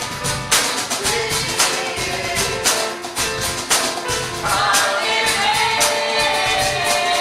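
Music: singing over a steady percussive beat, with the singing and overall level growing stronger about halfway through.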